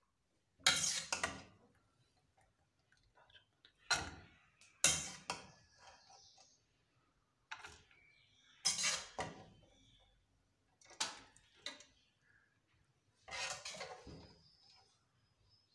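Grated carrot tipped in several lots into an empty aluminium pressure-cooker pot, each lot a short rustling clatter against the metal that fades within a second, about eight times with pauses between.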